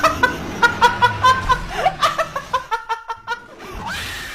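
High-pitched laughter in quick repeated bursts, several a second, fading out toward the end, followed by a brief swell of hiss.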